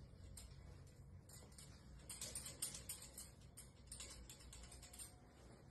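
Near silence, with faint scattered light ticks and rustles.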